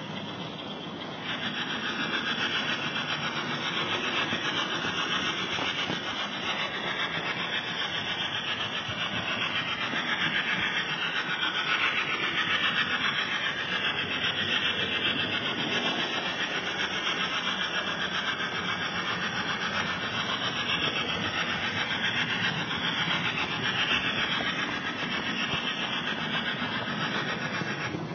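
Model train rolling along the layout track: a steady whirring rumble of wheels on rails and motor, heard close up from the moving train.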